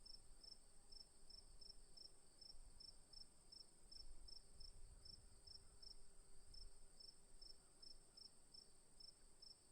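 Crickets at night: one steady, very high trill, with another cricket chirping evenly about three times a second just below it. Faint low rumble underneath.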